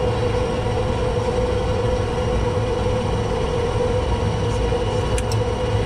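Steady cockpit drone of an ATR72-600's Pratt & Whitney PW127M turboprop engines and propellers running on the ground: a constant hum with a low rumble beneath it. Two faint clicks about five seconds in.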